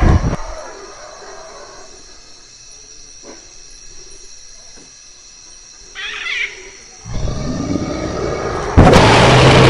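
Cinematic sound design for a title sequence. After a short hit, quiet jungle ambience with a brief animal cry about six seconds in. A rumble builds from about seven seconds, and a very loud movie-style dinosaur roar cuts in near the end.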